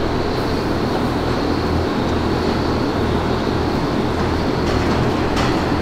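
Dairy barn fans and machinery running: a steady rushing drone over a low hum.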